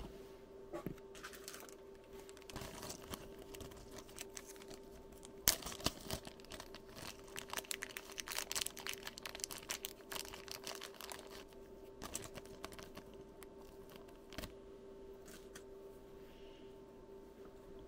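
Small clear plastic parts bag crinkling as it is handled and opened, densest through the middle, with scattered small plastic clicks from oscilloscope probe accessories being pulled off and fitted.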